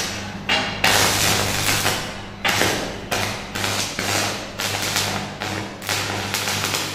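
Electric arc welding on a steel lap joint: the arc crackles and hisses in short runs, striking up again with a sharp start about every half second to second. A steady low hum lies underneath.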